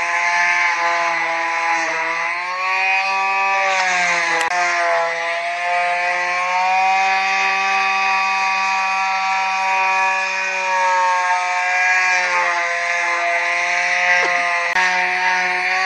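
DeWalt quarter-sheet palm sander running continuously against a mesquite slab: a steady motor hum over the hiss of sandpaper on wood, its pitch wavering slightly as it is pressed and moved.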